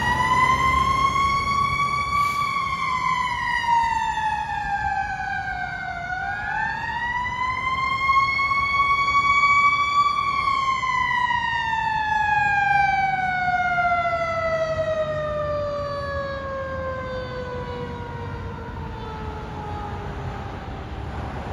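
Siren on a Seagrave fire ladder truck running on a response: it winds up to a high pitch, slides down, and winds up again about six seconds in. It then falls slowly in pitch for about ten seconds, growing fainter.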